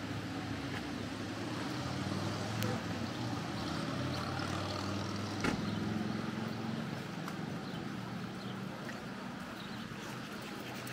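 A motor engine running at low, steady revs, a low hum that fades away after about seven seconds, with a couple of sharp clicks over it.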